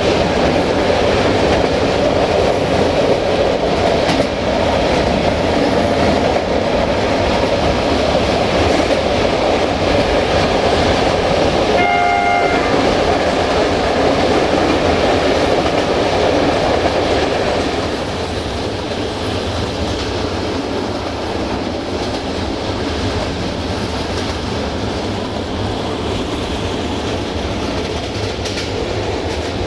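Running noise heard from inside a moving passenger train coach: a steady rumble with wheel clatter on the rails. About twelve seconds in, the locomotive's horn gives one short blast, and later the running noise gets a little quieter.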